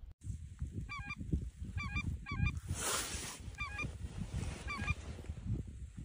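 Wild geese honking: five short, high calls in the first five seconds, over a low, uneven rumble.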